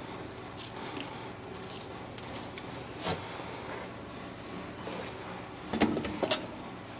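A few clicks and clunks of a loose steel floor plate being handled and lifted, the loudest cluster near the end, over a steady low hum.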